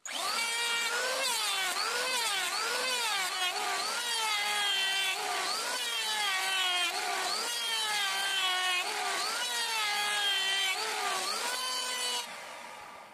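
Electric hand planer running and shaving a wooden board: its high whine sags in pitch each time the blades bite into the wood and recovers between strokes, about once a second over repeated passes, then winds down near the end.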